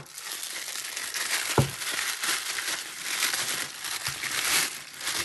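White tissue paper being pulled out of a product box and crumpled in the hand: a continuous crinkling. There is a single short thump about a second and a half in.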